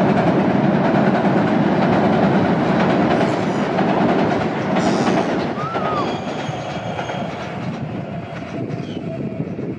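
A train running past with rattling wheels; its noise fades away over the second half.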